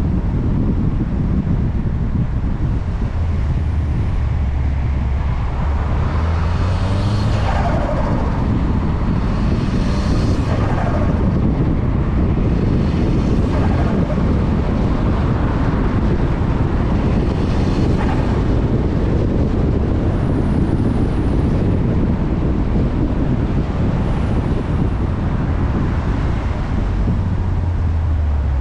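Mk6 Volkswagen Golf R's turbocharged four-cylinder engine under way while driving, heavily mixed with road and wind noise. The engine note swells and sweeps in pitch a few times as the car accelerates and shifts.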